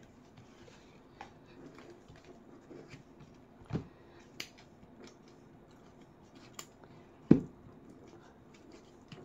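Silicone turtle mold being flexed and peeled by hand off a cured epoxy resin tray: faint rubbing and small crackles as the silicone lets go of the resin, with two low thumps, about four and seven seconds in, the second the louder.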